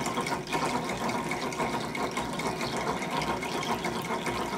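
Nitinol memory-wire spring heat engine running, its spring loop churning through the hot water and spattering it steadily.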